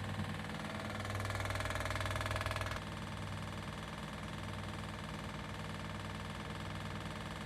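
Arçelik 9123N washing machine spinning: a steady motor and drum hum, with a louder, harsher rattling stretch from about one second in that drops away suddenly near three seconds. It is the noise and rattle during spin that the owner treats as a fault.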